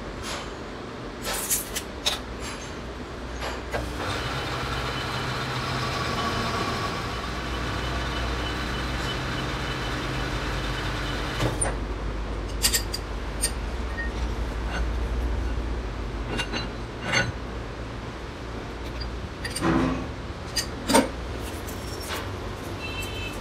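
Metal clinks and knocks of a lathe's four-jaw chuck being set up with a chuck key, with a steady machine hum and whine starting about four seconds in and cutting off halfway through. More sharp metal taps and clanks follow over a constant low workshop hum.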